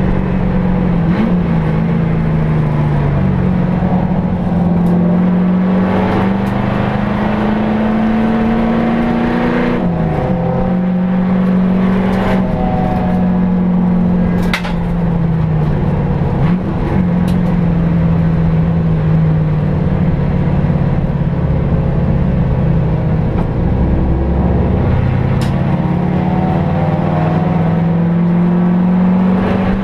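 HSV Clubsport V8 engine heard from inside the race car's cabin, its note climbing slowly and dropping back several times as it moves through the gears, over steady road and wind noise. A sharp click sounds about halfway through.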